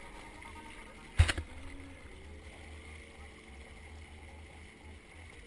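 Water pouring out of a swamped jet ski's hull and exhaust outlet and splashing into shallow water as the ski is tipped up to drain after sinking. A single sharp knock about a second in.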